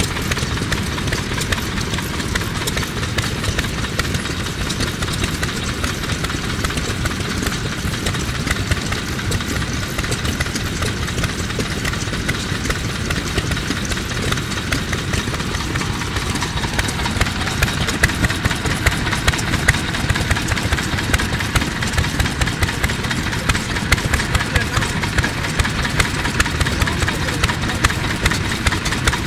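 Yoshida Type D 2.5 hp single-cylinder kerosene stationary engine running steadily with a rapid, even exhaust beat while belt-driving a straw rope making machine. The beats grow sharper and louder in the second half.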